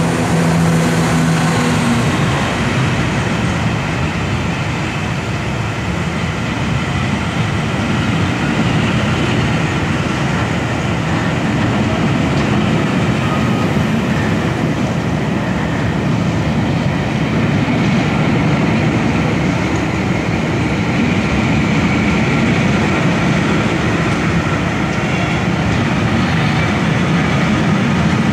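A train of coaches rolling steadily past on the rails, a continuous loud rumble of wheels on track. It is the empty coaching stock hauled by the A1 Pacific steam locomotive Tornado.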